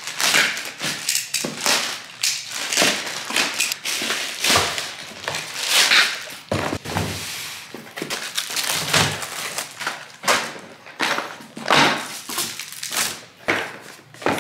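Packages being unboxed by hand: a plastic poly mailer cut open and crinkled, a cardboard box handled, and packaged items set down on a wooden table, making a string of irregular rustles and dull thunks.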